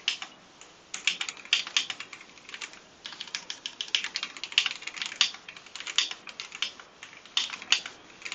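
Typing on a Royal Kludge H81 mechanical keyboard with Royal Kludge brown switches: quick runs of keystrokes with brief pauses between them.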